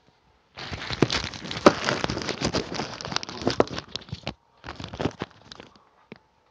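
Crackling, rustling handling noise as the phone's microphone is rubbed and jostled while the phone is moved and set down, with many sharp clicks. It comes in a long burst starting about half a second in, then a shorter one about five seconds in.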